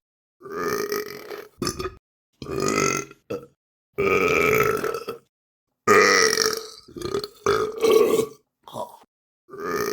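A run of human burps, about eight in a row, separated by brief silences. Some are drawn out for over a second with a wavering pitch; others are short.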